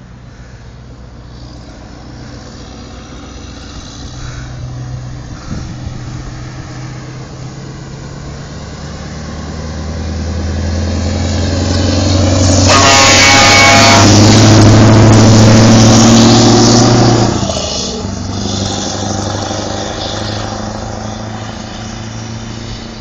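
Scania 143 450 truck's 14-litre V8 diesel approaching, passing close and pulling away. Its deep engine note builds slowly and is loudest for about four seconds in the middle, with a rush of tyre and wind noise and a short higher-pitched note as it goes by, then drops off sharply and fades.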